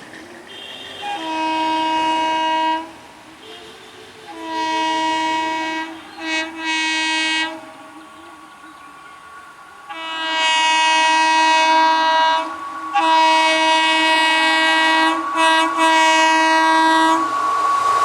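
An Indian Railways locomotive's air horn sounding in a series of long and short blasts, with a pause of a couple of seconds in the middle. Near the end the rushing noise of the approaching train rises.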